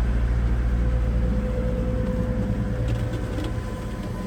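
Fishing boat's engine running with a steady low drone and a faint constant whine above it. It eases slightly about three seconds in.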